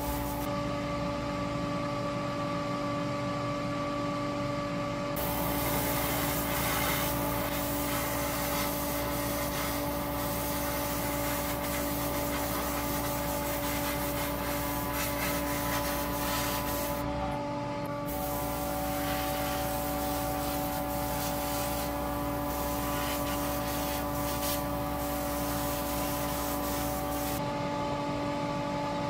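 Steady rubbing and sanding sound over a constant hum, changing abruptly a few times.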